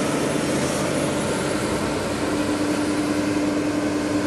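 JCB JS205 excavator's diesel engine running steadily, heard close to its engine cover, with a steady low hum over the engine noise.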